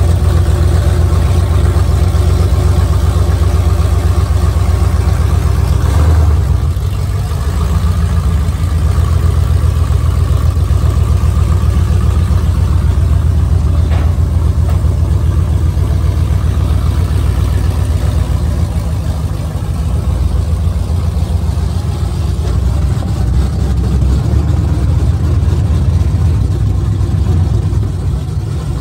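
Engine of a lifted late-1970s Chevrolet square-body pickup running at idle and low speed while it is driven down off a car trailer and across pavement. The exhaust gives a loud, low, rapid pulsing that eases briefly about six seconds in.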